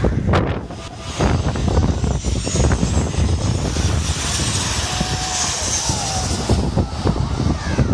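Jet engines of a Boeing 737 passing low overhead on final approach: a loud, steady rush of engine noise with a high fan whine that peaks a little past the middle, mixed with wind buffeting the microphone.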